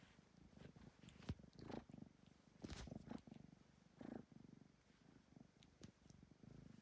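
Domestic cat purring steadily, with a sharp tap about a second in and a few soft rustles.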